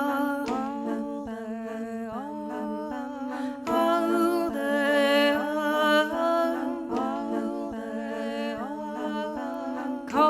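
Layered wordless vocal harmonies by a woman singer, built up on a looper: held, humming-like notes that slide between pitches, over a faint plucked mandolin.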